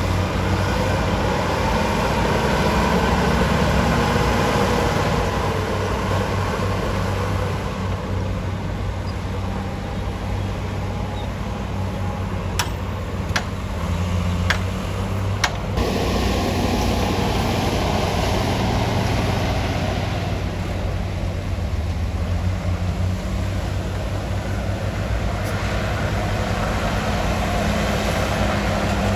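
Bulldozer's heavy diesel engine running steadily, its pitch shifting a little. Four sharp knocks come within about three seconds midway.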